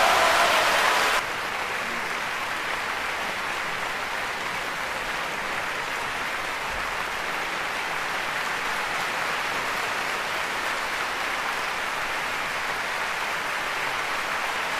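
Concert audience applauding after an orchestral piece ends. The applause is loudest for about the first second, then drops suddenly to a steady, even clapping.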